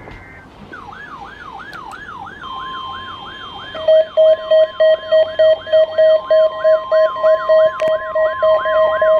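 Weather radio receivers sounding their alarms together. A siren-like alarm repeats a fast falling sweep several times a second from about a second in. The NOAA Weather Radio warning alarm tone, a steady 1050 Hz tone, joins a couple of seconds in, and a loud pulsing beep of about three a second joins about four seconds in.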